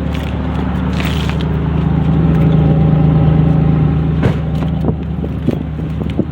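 Pontiac Bonneville's 3.8-litre V6 running at idle just after its first start following a cylinder-head and gasket rebuild. It swells a little in the middle, and a couple of sharp clicks come about four and five seconds in.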